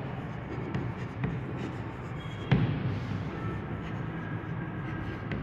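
Chalk writing on a blackboard: scattered light taps and scratches of the chalk stick, with a sharper tap about two and a half seconds in and brief faint squeaks.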